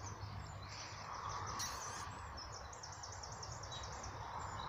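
Small birds chirping high and, about halfway through, a rapid high trill of some ten notes, over a steady low rumble.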